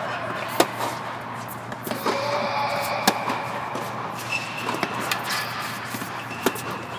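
Tennis balls struck by racquets in a baseline rally on an indoor court: sharp pops about every three seconds, with softer bounces between, echoing in the hall over a steady background hum.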